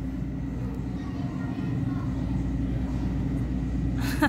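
Steady low droning hum of background machinery, with a brief sharp sound near the end.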